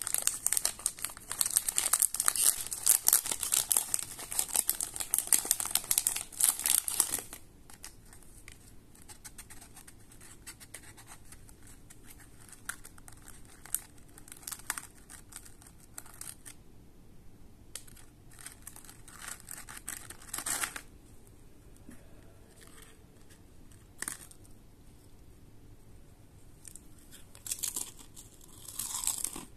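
Plastic biscuit wrapper being torn open and crinkled, dense and loud for about the first seven seconds. After that only scattered crinkles and small clicks as the clear plastic biscuit tray is handled, with a short burst of crinkling near the end.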